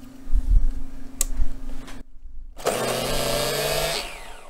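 A few low knocks, then an electric starter box spinning up a nitro RC engine (Maxy's Cinco 2.0) to start it: a steady drill-like motor whine that winds down with a falling pitch near the end.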